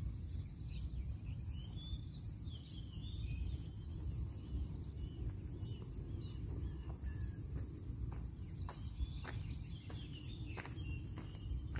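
Rural ambience: a steady high insect drone, with a bird repeating short arched chirps about twice a second from about two seconds in to about seven. Later, a few faint sharp clicks come as a person walks up on the soil.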